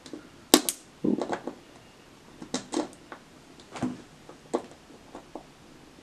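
Scattered small metallic clicks and scrapes of steel nail clippers catching on the metal head of a micro-USB plug as they pry up its two latch pins; the sharpest click comes about half a second in.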